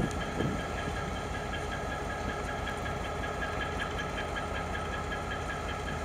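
GM G22 diesel-electric locomotive's EMD 12-645 two-stroke V12 idling steadily, with an even, rapid ticking beat over a low hum.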